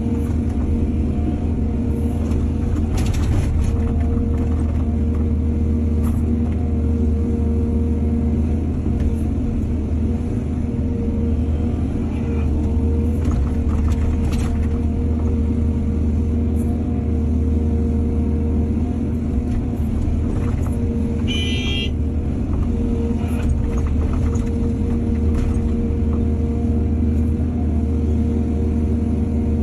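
Excavator's diesel engine running steadily with a deep, even rumble, with a few sharp knocks and a brief high-pitched squeal about two-thirds of the way through.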